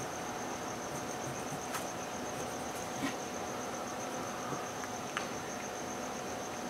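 A high chirp repeating in rapid, even pulses, typical of an insect such as a cricket, over a steady hiss. A few faint ticks come through about two, three and five seconds in.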